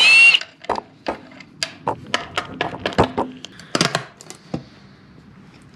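Cordless drill with a socket spinning a valve cover nut off on an International 484's diesel, its whine rising and cutting off just after the start. Then a run of sharp metallic clicks and taps from hand tools and the loosened valve cover, with a louder cluster of knocks about four seconds in.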